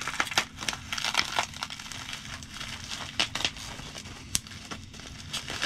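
Packaging crinkling and crackling as it is worked open by hand. It is tightly packed and hard to open. Dense irregular crackles for the first second and a half, then scattered single crackles.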